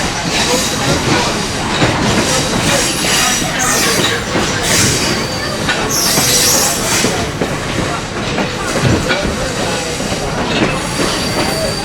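Passenger railroad coach rolling along the track, heard from aboard: a steady rumble and rattle of the car over the rails, with brief high-pitched wheel squeals about five and six seconds in.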